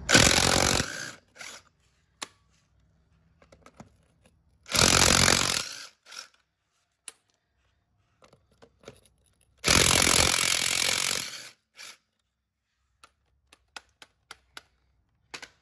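Impact wrench spinning lug nuts off a golf cart wheel in three short bursts: one right at the start, one about five seconds in and a longer one about ten seconds in. Light clicks come between the bursts.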